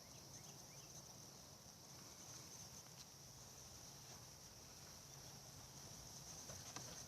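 Near silence with faint, steady high-pitched insect chirring.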